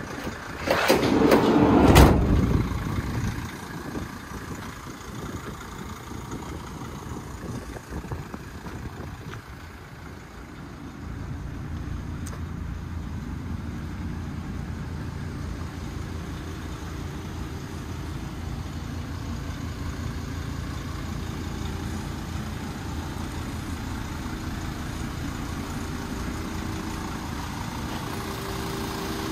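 Metal van doors banging shut in the first two seconds, then the 2005 Dodge Sprinter 2500's Mercedes-Benz five-cylinder turbodiesel idling steadily, louder from about ten seconds in.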